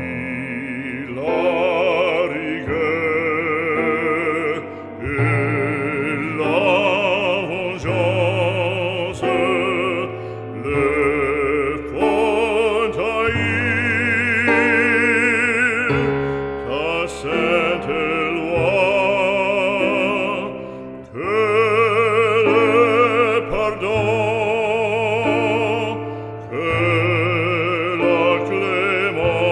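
Background music: an operatic voice singing long notes with a strong vibrato over sustained accompaniment.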